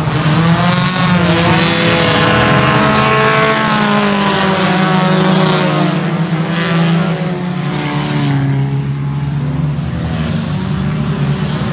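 Several race car engines running hard as compact stock cars lap a dirt oval, their pitches rising and falling as the cars pass and fade, a little quieter near the end.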